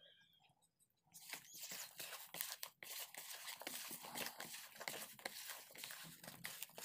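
Hands kneading spice-marinated fish pieces with cooking oil in a plastic basin: rapid wet, crackly squishing that starts about a second in and keeps going. This is the marinating stage, working the oil and masala into the fish before frying.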